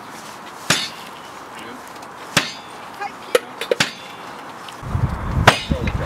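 Sharp knocks of bars and tools against the steel Meccano bridge as it is levered into line on its bearings, about six of them, spaced irregularly. A low rumble comes in near the end.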